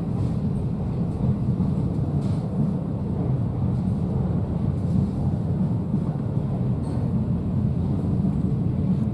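Steady low rumble of railway station and city background, with no single train clearly passing.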